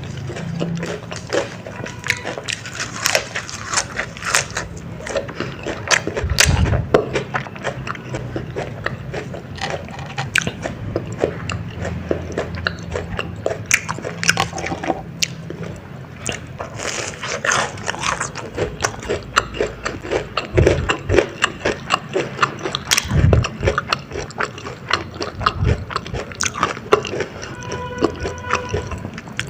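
Close-miked biting and chewing of a spicy baby corn dog, with many sharp crackling clicks and mouth noises throughout.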